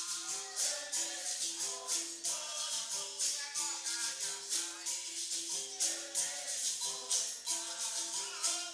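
Capoeira roda music: jingling and rattling hand percussion in a fast, even rhythm over short repeated pitched notes, with singing.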